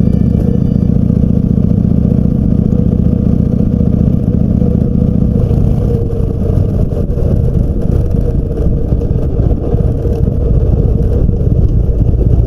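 Harley-Davidson V-twin motorcycle engine running under way on the road, loud and steady, with its low note shifting about halfway through.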